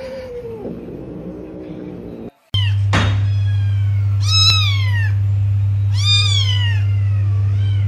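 Young white kitten meowing: three high calls about a second and a half apart, each rising then falling in pitch, the last one shorter and fainter. A steady low hum and a single sharp knock come just before the first meow.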